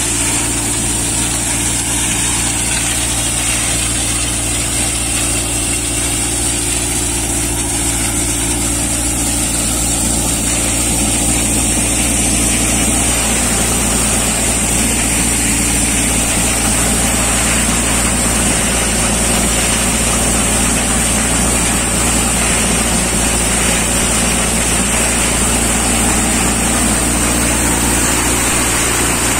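Tractor-driven Yoddha multicrop thresher running steadily, the tractor engine's hum under the thresher's drum and blower, with a steady high hiss over it.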